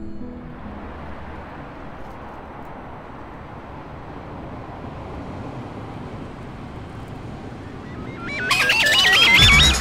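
Steady background noise, then a little after eight seconds a loud, fast-warbling electronic tone swells up quickly as the scene goes into electronic music.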